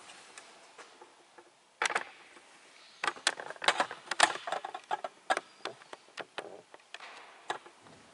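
Irregular sharp clicks and knocks: one about two seconds in, then a dense run of them for a few seconds, thinning out toward the end.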